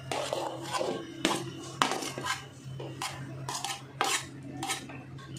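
Metal spoon clinking and scraping against a cooking pot in a string of sharp, irregular taps about every half second, as a layer of biryani is spread in the pot.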